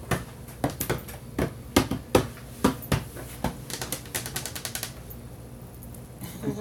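A run of sharp, irregular clicks, two to three a second, then a quick rattle of clicks about four and a half seconds in, after which it goes quiet but for faint room hum.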